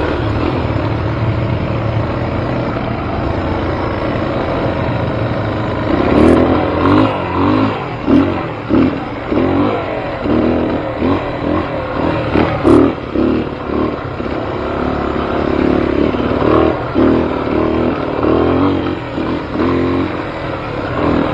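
Dirt bike engine recorded on board while riding a rough trail: it runs steadily at first, then from about six seconds in revs up and down again and again as the throttle is worked, with a few sharp clacks.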